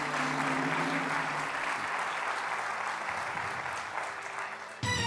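Studio audience applauding, with a sustained music chord fading out under it in the first second or so. A new music cue cuts in sharply near the end.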